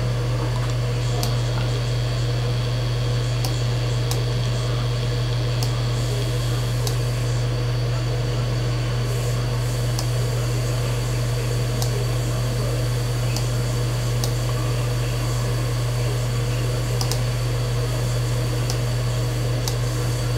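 Steady low hum with a faint high whine, the loudest thing throughout, with a few scattered faint clicks of a computer mouse.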